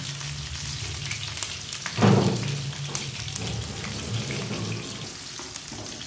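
Sliced turmeric, garlic, onion and lemongrass sizzling in hot oil in a wok, with a loud thump about two seconds in.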